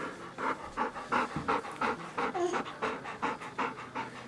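A dog panting steadily, at about three quick breaths a second.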